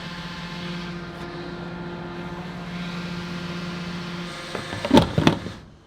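Diesel fuel dispenser pump running steadily as the tank is filled, stopping about four seconds in, followed by a few sharp clacks from the pump nozzle.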